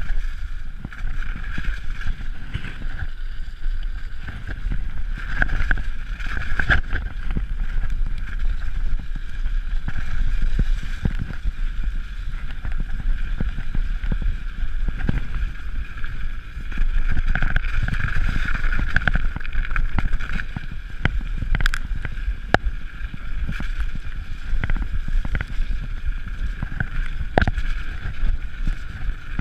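Mountain bike descending fast over a rough gravel track: wind buffeting the camera microphone and tyres rumbling, with frequent short knocks and rattles as the bike hits bumps. A steady high buzz sits over it throughout.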